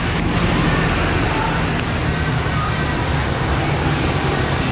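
Steady outdoor background rumble and hiss, like distant traffic, with a few faint short high tones scattered through it.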